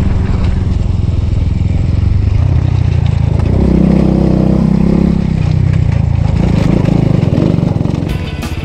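Enduro motorcycle engine running while riding along a road, over a steady rush of noise. The engine note rises and grows louder about three and a half seconds in, then drops back, with a smaller swell a little later.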